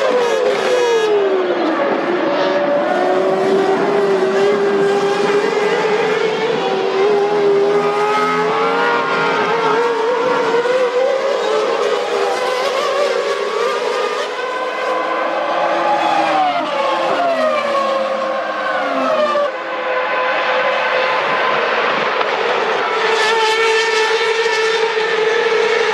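1998 Formula One cars' 3.0-litre V10 engines running at high revs on track, their pitch climbing and falling as they accelerate, brake and shift. There is a sharp drop in pitch right at the start, like a car passing by, and more downward glides later on.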